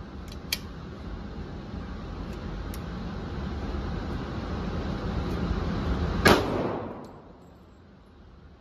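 A single Glock pistol shot about six seconds in, echoing briefly in the indoor range, over a steady low rumble. A light click sounds near the start as the pistol is handled.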